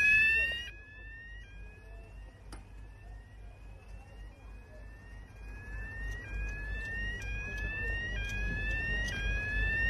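Fire engine sirens sounding a fast rising wail that repeats about one and a half times a second, a second siren overlapping in the second half. They grow louder toward the end as the engines approach.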